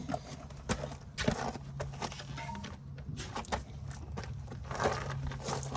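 Spanner working a very tight bottom bolt on a brake caliper: irregular metallic clicks and knocks, over a steady low hum.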